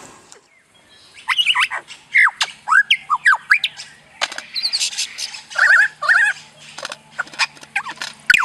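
A bird chirping and whistling: a rapid string of short calls sliding up and down in pitch, starting about a second in.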